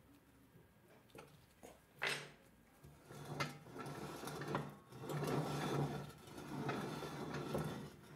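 Hand work on a restored butter churn's metal stand and crank assembly: a sharp click about two seconds in, then a run of rapid mechanical clicking and whirring that grows steady over the last few seconds.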